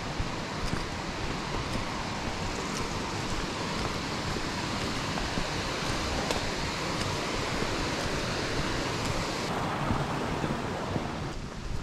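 Steady rushing of a woodland brook running over rocks, an even hiss; its brighter upper part fades about nine and a half seconds in.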